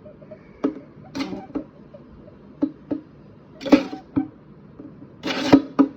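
Pet rabbit grunting in short, sharp bursts, about eight of them at irregular spacing, some close together in pairs. This is the defensive grunt a rabbit gives when annoyed, as it fights back.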